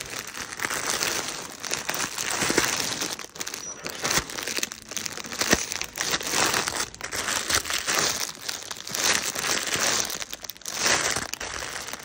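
Clear plastic packaging crinkling in irregular bursts as plastic-wrapped bedding sets and fabrics are handled.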